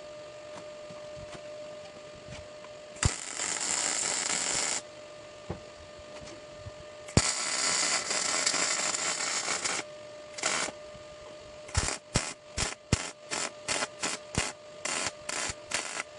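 An electric arc working on steel: two sustained runs of crackling hiss, each starting with a sharp click, then a quick series of short arc bursts, about two or three a second. A steady low hum runs underneath.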